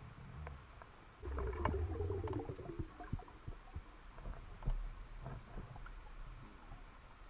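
Underwater sound from a spearfisher's speargun-mounted camera: scattered small clicks and knocks. A little over a second in, a low, wavering rumble starts and lasts about a second and a half as the diver moves.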